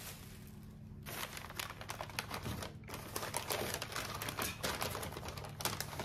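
Paper shopping bag and paper wrapping rustling and crinkling in irregular quick crackles as hands dig items out of the bag; it starts about a second in.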